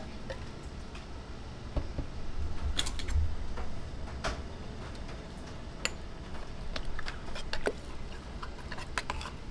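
A handful of light, scattered clicks and taps from the metal condensed-milk can and its cut lid against the glass blender jar as the milk is poured in, over a low steady hum.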